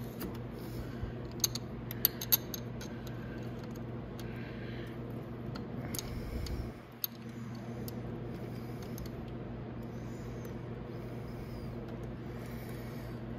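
Bolt being started by hand in an electric ATV's front brake caliper: a few faint metallic clicks and taps over a steady low hum.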